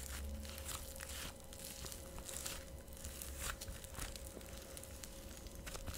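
Cloud slime being squeezed and pulled apart in the hands, still stiff and crumbly before it warms up: faint, irregular soft crackling and tearing.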